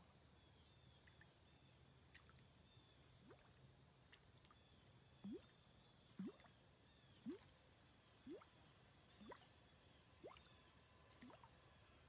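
Rebel Pop-R topwater popper lure being twitched across a pond, making short faint rising bloops about once a second from a few seconds in. Steady high-pitched insect chirring goes on underneath.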